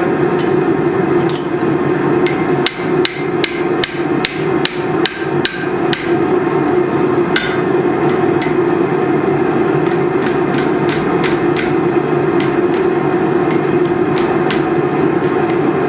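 Hand hammer striking steel on an anvil: a quick run of blows at about three a second in the first half, then scattered single strikes, over a steady loud roar.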